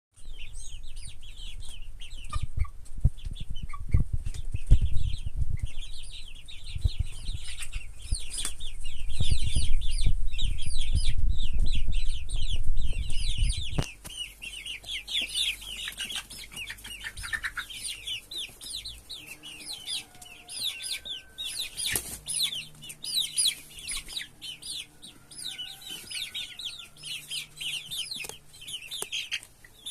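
A flock of Galinha Sertaneja Balão chickens clucking, with many rapid, high cheeping calls throughout. A heavy low rumble underlies the first fourteen seconds or so and then stops.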